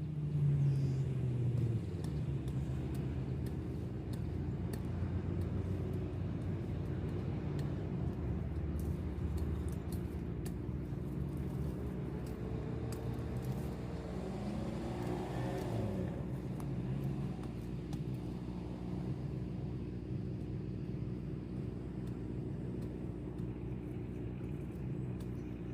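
Steady engine rumble with a low hum, its pitch sliding up and then down around the middle.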